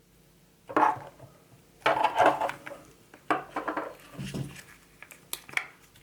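Small hard plastic pieces being handled and put down on a table, giving a string of irregular clicks, knocks and clatters. The loudest knocks come about a second in and around two seconds in.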